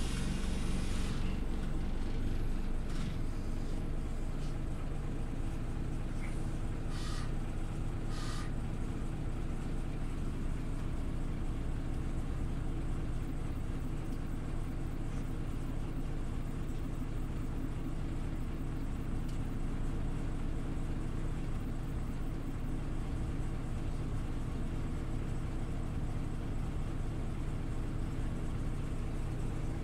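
Scania OmniLink CL94UB city bus running, a steady engine and drive drone, with brief hisses about a second in and again around seven and eight seconds in.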